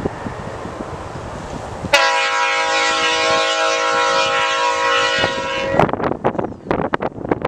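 Freight locomotive air horn on an approaching CN intermodal train: one long blast of several pitches at once, starting about two seconds in, held for nearly four seconds, then cut off sharply. Wind rumbles on the microphone before and after the blast.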